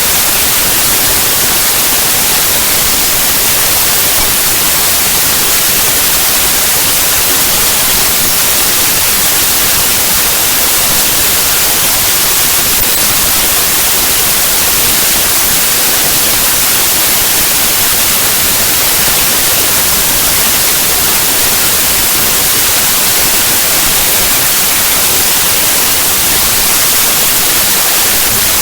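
Loud, steady static hiss: the compressed bytes of a zip archive played back as raw 8-bit unsigned mono audio, which comes out as unbroken white noise with no tones or events.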